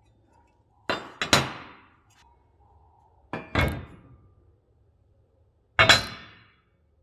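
Metal striking metal three times, about two and a half seconds apart: each a quick double clank with a short ringing fade.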